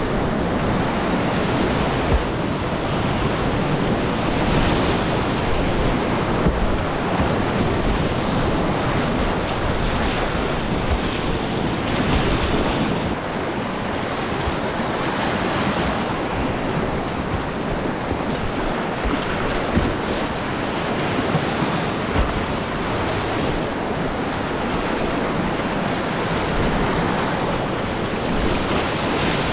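Whitewater rapids rushing around a kayak: a steady, dense rush of churning water close to the boat, with a few brief sharper splashes as the paddle strikes the water.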